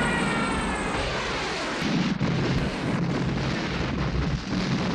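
A small jet aircraft's engine noise and a large explosion's rumble making one continuous loud din, with a sharp crack about two seconds in.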